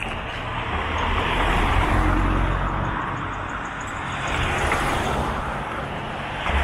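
Road traffic: cars passing one after another, the tyre and engine noise swelling about two seconds in and again around five seconds.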